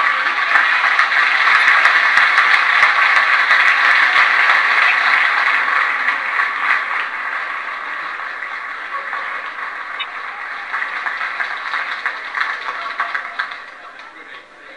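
Lecture-hall audience laughing and applauding, loud at first and slowly dying away over about ten seconds.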